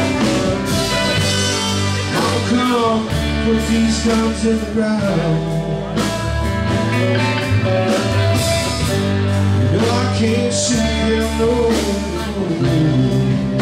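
Live blues-rock band playing an instrumental passage between sung lines: electric guitar, bass guitar, drum kit and saxophone, with gliding lead notes over a steady bass line and beat.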